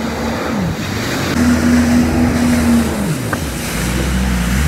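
Jet ski engine running as it is ridden, its pitch dropping, climbing and holding for a second or so, then falling away about three seconds in and picking up again near the end as the throttle changes, over the rush of water spray from the hull.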